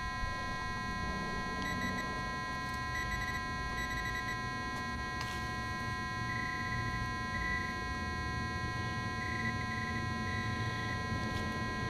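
Metal detector signal tone: a high electronic beep sounding in short bursts several times, over steady electronic tones, signalling a metal target in the dug hole.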